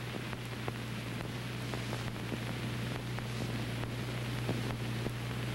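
Steady hiss and low hum of an old film soundtrack, with faint scattered crackles and no other sound.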